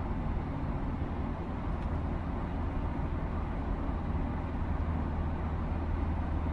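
Steady low rumble and running noise of a moving train, heard from inside the carriage.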